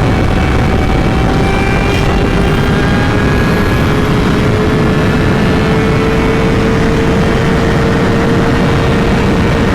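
Kawasaki 636 sport bike's inline-four engine running at road speed, its note climbing slowly and steadily as the bike gathers speed, under heavy wind rush on the microphone.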